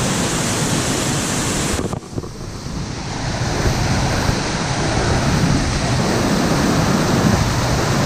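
Waterfall rushing over rock ledges: a loud, steady wash of falling water. About two seconds in the sound drops sharply, then swells back up over the next few seconds.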